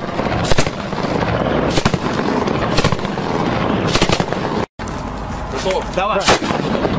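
Small-arms fire: single sharp gunshots about a second apart from rifles and a belt-fed machine gun, over a steady noisy background.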